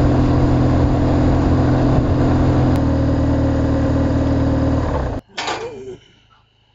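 BMW adventure motorcycle's engine running steadily while riding, its pitch stepping down slightly about three seconds in. It cuts off abruptly about five seconds in, and a brief sharp sound follows.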